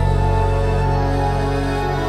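Background music: sustained, held chords, with a new chord coming in right at the start.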